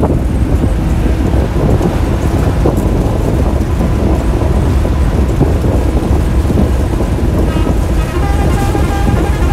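Diesel bus engine and road noise heard from inside the driver's cab while under way at speed: a steady, loud low rumble. Near the end, a sustained tone of several pitches comes in over it.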